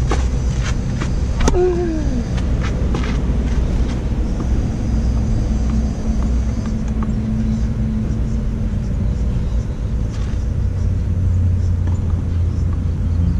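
Outdoor ambience dominated by a steady low rumble, with several sharp clicks in the first three seconds and a brief falling tone about one and a half seconds in.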